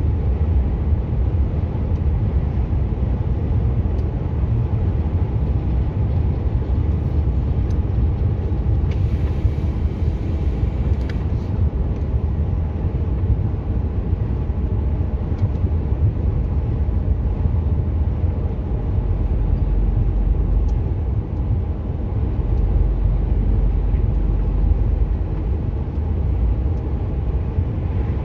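Truck engine and tyre noise heard inside the cab at road speed: a steady low rumble.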